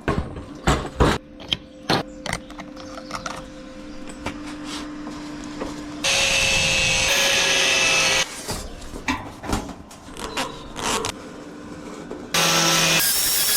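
Metalworking on the cart's sheet-steel side panels: a run of metal knocks and taps, then two loud steady bursts of tool noise about two seconds each, one about six seconds in and one near the end.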